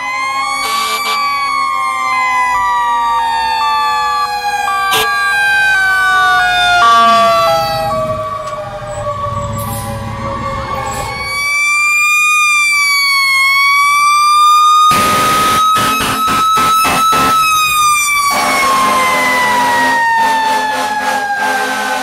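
Fire engine sirens wailing, several at once, their pitch sliding slowly down and back up. Long air horn blasts sound repeatedly over them in the second half.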